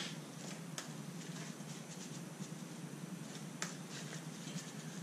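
Sleeved trading cards handled and shuffled by hand: a soft, scratchy rustle with a few light clicks, over a steady low hum.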